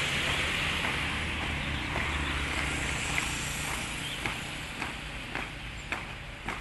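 Feet of a column of marchers striking the ground together in step, about twice a second, coming through from about halfway in as a steady hiss fades.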